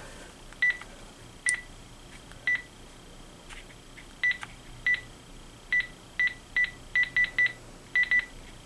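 Panasonic KX-TG6521 cordless phone keys being pressed, each press giving a short single-pitch beep. There are about fifteen beeps, some spaced out and some in quick runs of two to four.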